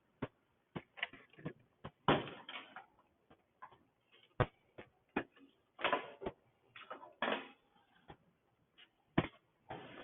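Irregular clicks and short clattering rattles of small metal parts being handled, as bolts for a small-engine assembly are searched for and picked up, with a few louder rattles about 2, 6 and 7 seconds in.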